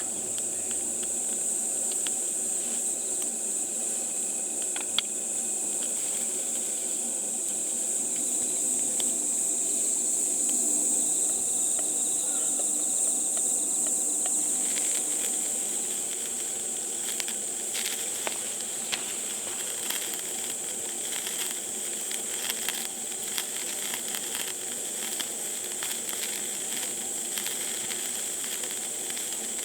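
Crickets chirring in a steady high chorus. About halfway through, a crackling sizzle of scattered pops and hiss joins in and carries on to the end.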